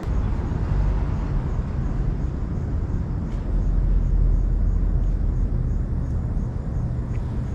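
Steady low rumble of road traffic noise.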